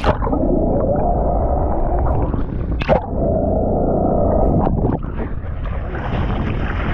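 Muffled underwater sound of water rushing over a submerged camera, broken by a brief sharp splash about three seconds in. Near the end the camera comes back up into the air among splashing water at the surface.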